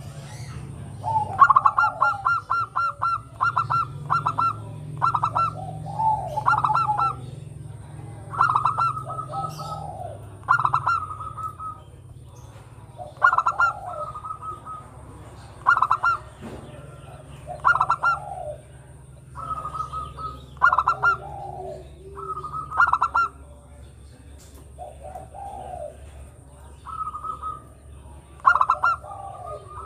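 Zebra dove (perkutut, Geopelia striata) singing: a long series of short cooing phrases, one every second or two, each a quick stuttering run of high notes ending in a lower, falling note.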